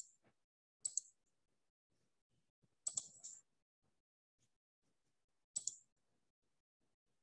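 Computer mouse clicking: four sharp clicks, one to two seconds apart, the third followed quickly by another.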